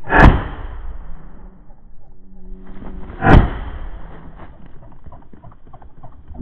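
Two shotgun shots about three seconds apart, each a sudden loud crack with a short ringing tail.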